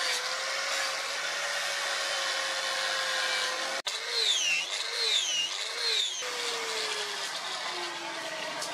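Angle grinder with an abrasive disc grinding the face of a leaf-spring steel blade: a steady motor whine. Its pitch dips and recovers several times as the disc is pressed on, then drops steadily near the end.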